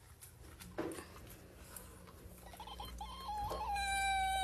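Faint clicking at the food bowl, then from about three seconds in a pet's drawn-out whining call that steps down once and then holds one high pitch for over a second.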